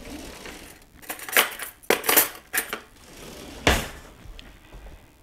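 Metal cutlery and dishes clinking and clattering while a fork is fetched: a run of sharp clinks between about one and two and a half seconds in, then one louder clunk near four seconds.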